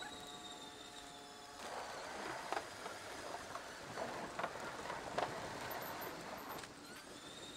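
Electric bike's tyres rolling over a footbridge deck, a rough rumbling with several sharp knocks as they cross the deck's joints, from about a second and a half in until near the end. Before and after the bridge, a steady high whine from the e-bike's motor.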